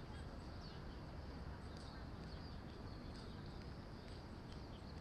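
Outdoor ambience: a steady low rumble with scattered short, high chirps of small birds.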